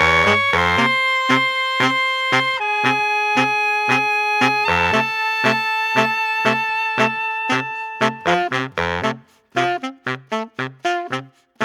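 Music: long held horn-like notes that change pitch every couple of seconds, over a steady beat of about three strokes a second. About eight seconds in it breaks into short, choppy notes with brief gaps.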